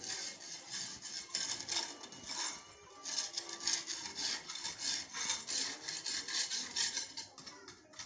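Repeated rasping strokes of a hand tool scraping and scrubbing the concrete floor of a bird enclosure, about two or three strokes a second, with a short pause about three seconds in.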